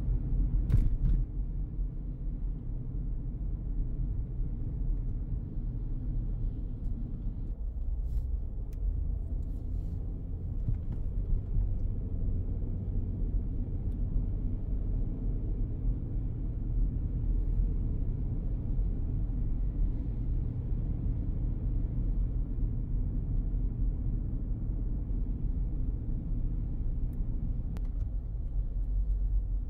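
A car driving, heard from inside the cabin: a steady low rumble of engine and tyres on the road, with a few faint clicks.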